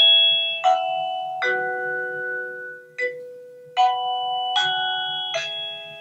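Avantek DT52 plug-in wireless doorbell receiver playing an elaborate chime tune: about seven bell-like notes at a slow, uneven pace, each ringing on into the next.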